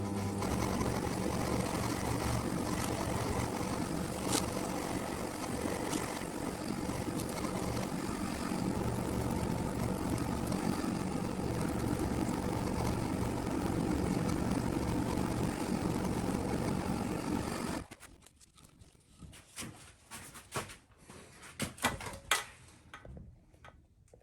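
A small electric motor runs steadily for about 18 seconds, then stops abruptly, followed by scattered light clicks and knocks.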